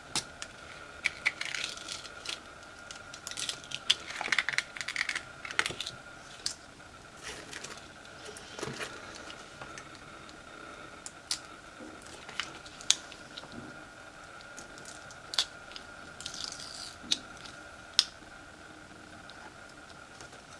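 Stencil vinyl being weeded with a weeding hook: scattered small clicks and ticks as the hook picks at the cut letters, and a few short crinkling, peeling stretches as pieces of vinyl are pulled off the backing sheet.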